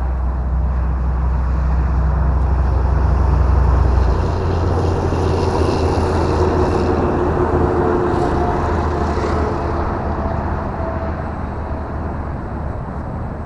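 Electric motor and propeller of an E-flite Carbon Cub S2 RC plane in flight, a steady whine that shifts slowly in pitch as it flies about. A heavy low rumble sits under it for the first four seconds, then drops away.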